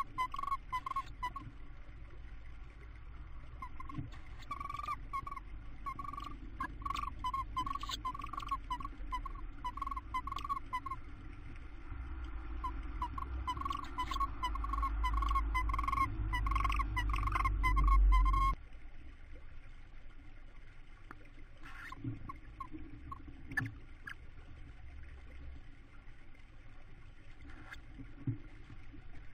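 Tawny owls in a nest box giving a rapid series of short, twittering calls, about two or three a second, with scratching and rustling in the wood-chip bedding. The calls stop abruptly about two-thirds of the way through, leaving only scattered scratches.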